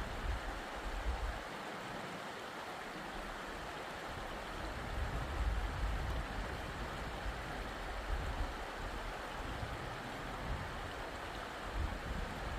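Steady rush of running water, with a low wind rumble on the microphone at the start, in the middle and again near the end.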